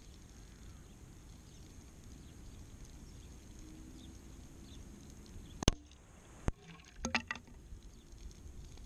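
A single .177 air rifle pellet hits the paper target on its wooden backboard with one sharp crack a little past halfway, followed by a fainter click and a brief rattle of small knocks. A low steady background hiss runs beneath.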